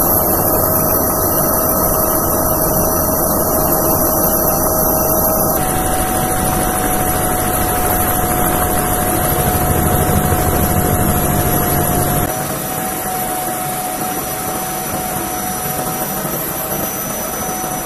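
Helicopter turbine engines whining over steady rotor noise, with several steady high-pitched tones. The sound changes abruptly about five and a half seconds in, and again about twelve seconds in, after which it is quieter and thinner in the low end.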